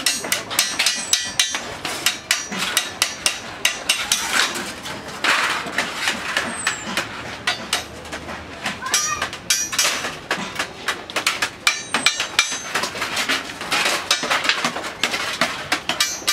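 Hand snips cutting sheet aluminium in quick repeated snips, mixed with clatter and knocks of the metal being handled and worked.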